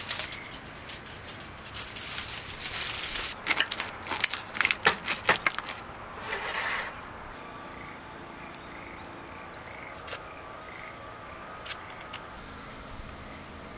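Aluminium foil crinkling as it is peeled back from a baked pizza, then a crisp pizza crust being cut in its foil tray, a run of sharp crunches a few seconds in.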